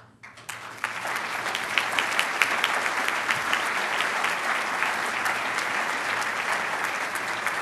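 Audience applause, swelling over the first second and then holding steady, with many hands clapping.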